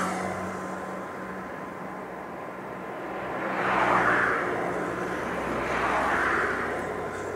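Cessna 208B Grand Caravan's single turboprop engine running with a steady whine, while rushing noise swells and fades twice, about four and six seconds in.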